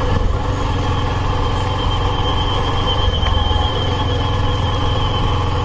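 A vehicle engine running steadily on the move, with a thin high whine wavering above it through the middle stretch.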